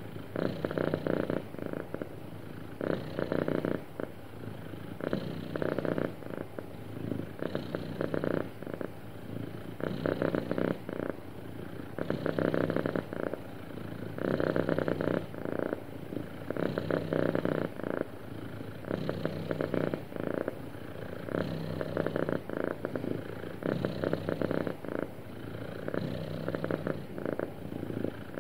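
Domestic cat purring continuously, the purr swelling and easing with each breath, with a louder phase about every two seconds.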